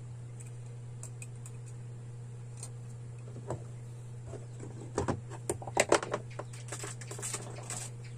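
Small plastic clicks, taps and rattles as a round plastic ceiling lamp receptacle and its wires are handled and fitted at a plastic junction box, mostly from about five to eight seconds in, over a steady low hum.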